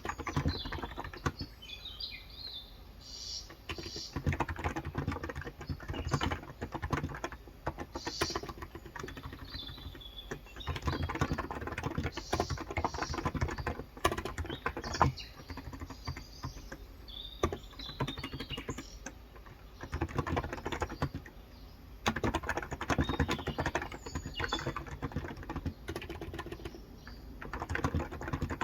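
Typing on a Cox Endeavour tenkeyless keyboard with 35 g electro-capacitive switches: quick runs of keystrokes with short pauses between them. Birds chirp now and then in the background.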